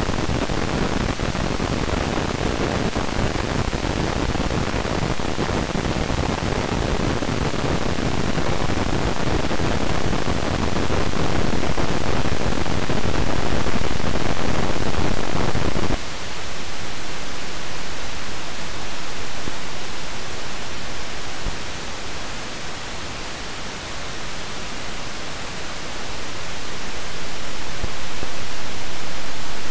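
Amplified electrical noise of an old East German Miniplast silicon transistor: a hiss broken by random popcorn-like pops and crackles, the random telegraph noise of the part. About 16 seconds in it switches abruptly to a second transistor of the same kind, whose noise is a smoother hiss with much less low rumble.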